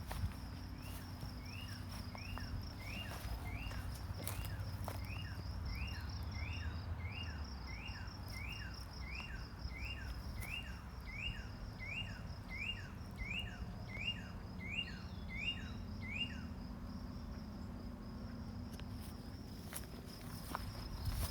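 Insects trilling steadily outdoors. Over it, a short call repeats a little more than once a second and stops about three quarters of the way through.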